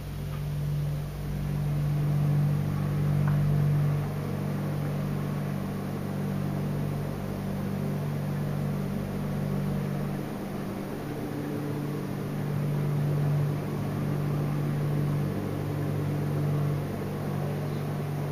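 A steady low machine hum made of a few held pitches, swelling slightly a couple of times.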